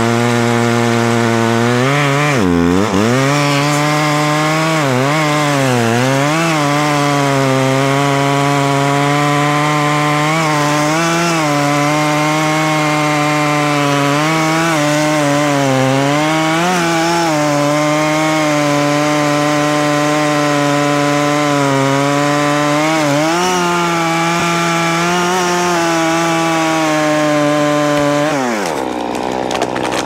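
Two-stroke chainsaw running at full throttle while cutting into a standing tree trunk to fell it; the engine note sags and recovers again and again as the chain bites into the wood. Near the end the saw drops back to idle.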